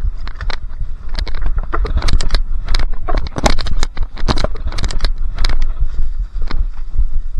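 A bicycle rides over a wooden plank teeter-totter ramp, making a rapid, irregular run of knocks and rattles over a steady low rumble.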